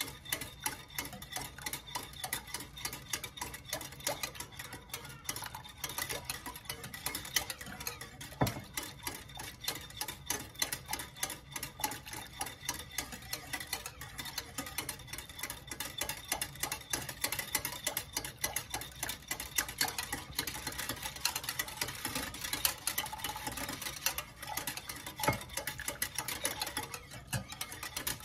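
Wire whisk beating thin batter in a glass mixing bowl, its wires clicking rapidly and steadily against the glass as hot cocoa is whisked into the wet ingredients.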